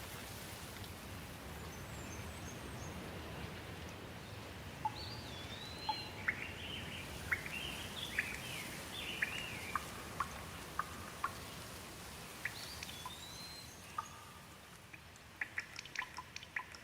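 Steady rain falling on leaves, with a bird calling in short chirping, whistled phrases through the middle. Near the end the rain thins and separate drips ticking off the leaves stand out.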